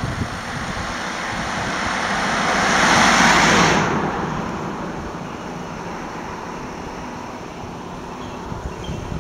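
A car passing close by on the road, its tyre and engine noise swelling to a peak about three seconds in, then dropping away quickly.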